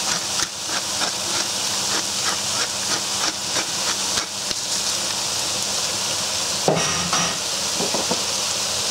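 Geschnetzeltes strips, onion and garlic frying in olive oil in a pan, sizzling steadily. Through the first half, a pepper mill grinds over the pan with quick repeated clicks. A knock about two-thirds of the way in.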